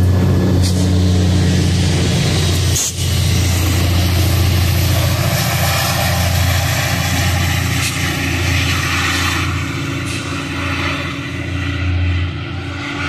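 An MBTA commuter train's diesel locomotive runs under power as the train pulls away: a steady, loud low engine drone mixed with rail and wheel noise. It eases off slightly near the end as the train recedes.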